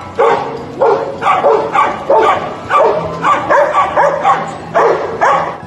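Dogs barking over and over in excited play, about two barks a second.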